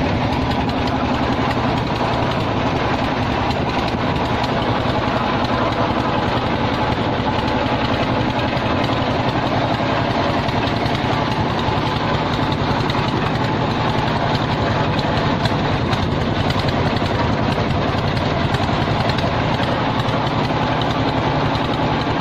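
Small boat's motor running steadily at an even speed, with no change in pitch or level.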